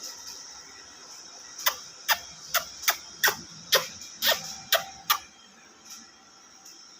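A bird giving a run of about nine short, sharp calls, each a quick downward sweep, roughly two a second, for about three and a half seconds.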